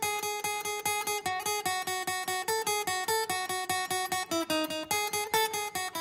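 Music: an acoustic guitar on its own, strummed in a fast, even rhythm of repeated chords.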